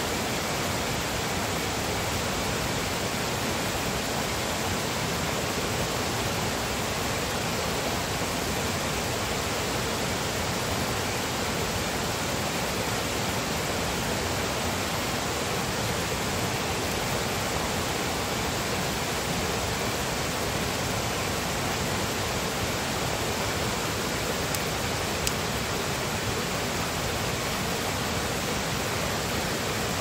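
Shallow stream flowing over rocks and stones: a steady, even rush of water.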